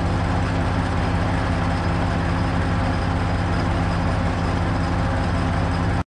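Truck crane's diesel engine running steadily, a low even rumble with a fine regular firing pulse. It cuts off abruptly at the very end.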